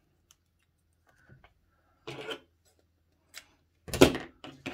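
Hands handling a sinamay hat base and its elastic on a worktable: faint ticks and small rustles, a short rustle about two seconds in, then a louder sharp knock about four seconds in as the base is moved.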